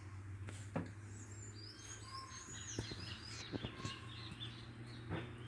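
Birds chirping, a cluster of short high chirps in the middle, over a steady low hum, with a few sharp clicks.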